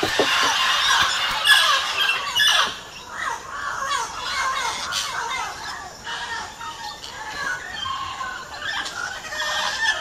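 A flock of green parrots calling at once: many overlapping harsh squawks and short falling screeches. The calls are loudest and densest for the first two or three seconds, then thin out into scattered calls.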